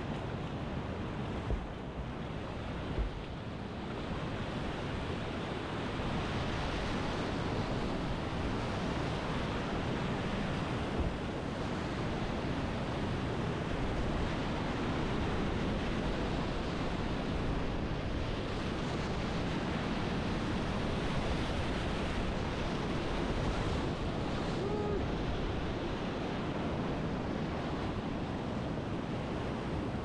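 Whitewater rapids rushing in a steady wash of water noise, with a couple of brief knocks in the first few seconds and another near the middle.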